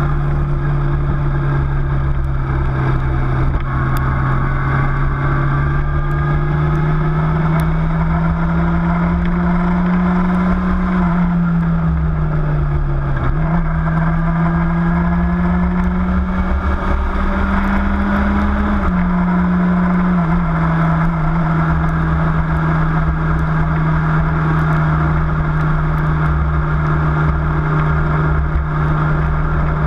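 Engine of the vehicle carrying the microphone running at road speed, its pitch climbing slowly as it speeds up, falling away about twelve seconds in, climbing again and dropping about nineteen seconds in, then holding steady. A constant low rumble of wind and road noise runs beneath it.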